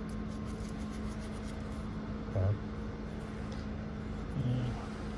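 A steady low mechanical hum holding one pitch, over an even background hiss, with a brief spoken 'yeah' about two seconds in.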